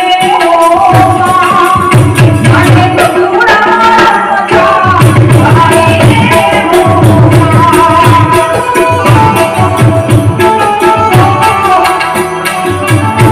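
Woman singing a Gujarati devotional bhajan, accompanied by a harmonium's steady chords and tabla strokes.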